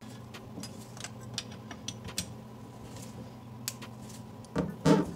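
Small metal clicks and ticks of a wrench and gloved hands working the hose connection on a metal kitchen faucet neck, with two louder knocks near the end.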